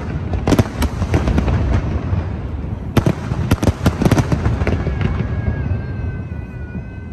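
Aerial fireworks bursting in a rapid volley of bangs and crackles over a continuous echoing rumble. The bursts thin out after about four and a half seconds, and a steady high whistling tone comes in near the end.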